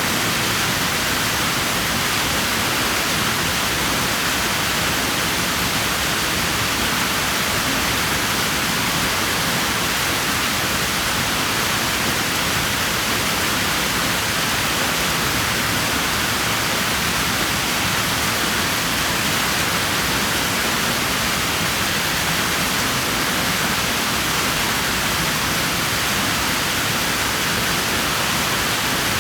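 Water rushing steadily in a swimming pool: a constant, even hiss with no splashes, breaks or changes in level.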